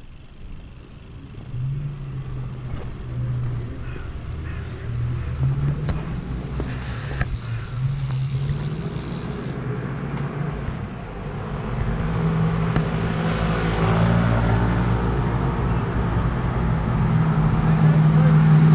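Motor vehicle engine running steadily, growing louder over the last several seconds as traffic nears.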